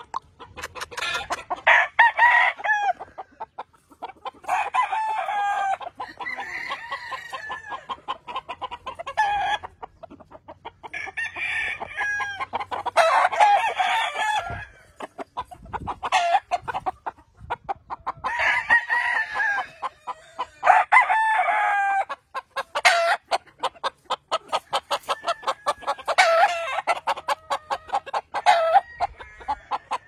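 Gamefowl roosters crowing again and again, long crows a couple of seconds each and sometimes overlapping, with many short sharp clucks in between.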